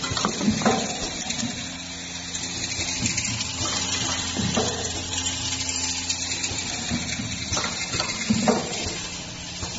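Double-headed pipe chamfering machine running: a steady motor hum under a loud hiss, with sharp clicks and knocks here and there, most clearly near the start and twice near the end.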